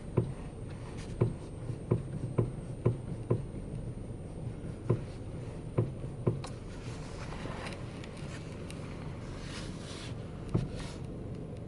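Irregular sharp knocks from the steering of a 2015 Volkswagen Polo Sedan, about nine in the first six seconds and one more near the end, over a steady low hum: the knock is the steering fault being shown.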